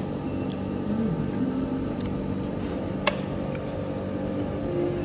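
Cafeteria room noise: a steady din of ventilation and distant voices, with a few sharp clicks of tableware, the loudest about three seconds in.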